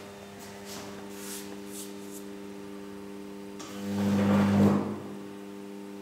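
Homemade high-voltage transformer rig humming steadily on mains power, with a loud electrical buzz for about a second past the middle.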